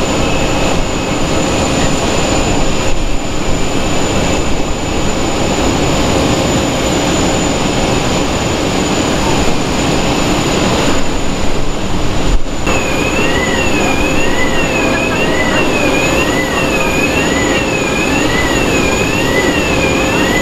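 Steady whine and rumble of idling aircraft and ground machinery. After a cut, a moving jet bridge's two-tone warning tone warbles up and down about once a second over the steady whine.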